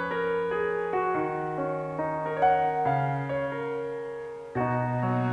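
Roland RD-700NX digital stage piano playing a slow melody of single notes over held bass notes, each note ringing and fading. A fuller new chord comes in near the end.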